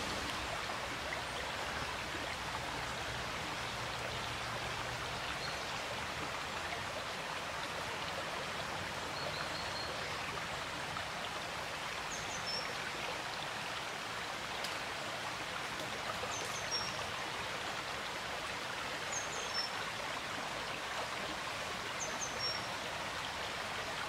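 Small rocky stream running steadily over stones. In the second half a short, high, falling chirp comes four times.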